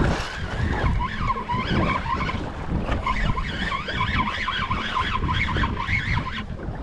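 Spinning reel cranked quickly to retrieve line, a fast rhythmic whirring from about a second in that stops abruptly near the end, over wind buffeting the microphone.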